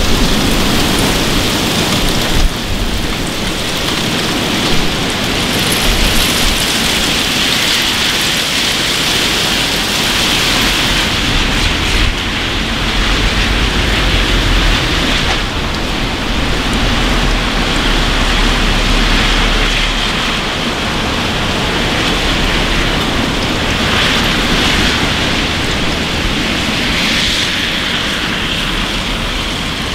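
Heavy rain pouring down steadily on pavement and parked cars, with a low rumble coming and going underneath.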